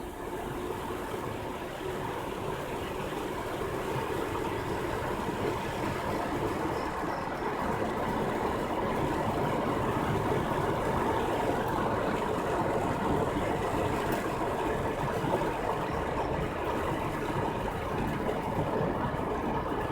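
Steady vehicle noise, engine and road, that grows gradually louder over the first several seconds and then holds steady.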